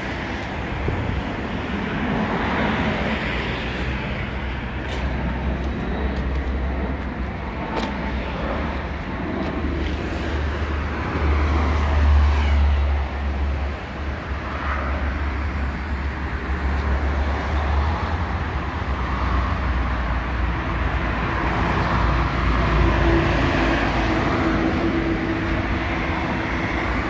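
Steady outdoor background noise with a strong low rumble, typical of road traffic going by.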